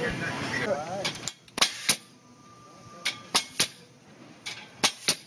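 A pneumatic Kodi Klip rebar clip tool firing clips onto rebar intersections: a series of sharp snaps, mostly in quick pairs or threes.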